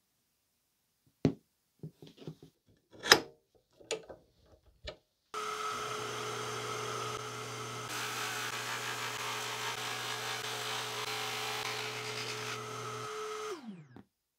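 A few light clicks and knocks, then a drill press motor starts and runs steadily with a constant hum. A few seconds later the hole saw bites into a pine board and a steady cutting noise joins the hum. Near the end the motor is switched off and winds down with a falling pitch.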